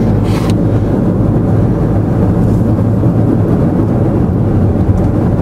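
Steady low rumble of a moving car heard from inside its cabin, with tyre and engine noise.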